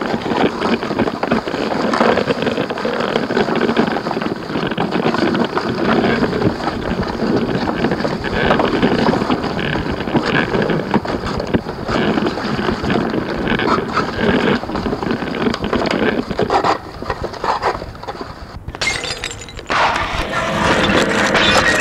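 Experimental harsh noise / musique concrète: a dense, rough, churning wall of noise with no beat or melody. It thins out and sinks lower for a few seconds near the end, almost breaking off once, then comes back loud with a steady low hum underneath.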